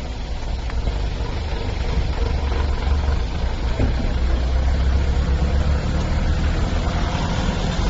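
A vehicle engine idling, giving a steady low rumble throughout.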